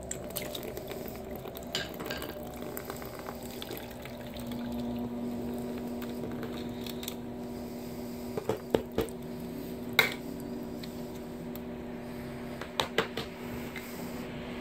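Engine coolant trickling out of the open thermostat housing of a 1.6 L GDI engine into a drain pan below. A few sharp metallic clinks sound about eight to ten seconds in and again near thirteen seconds.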